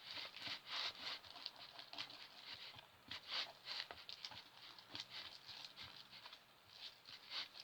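Stringy glue slime being stirred and worked in its container, making quiet, irregular sticky clicks and squelches.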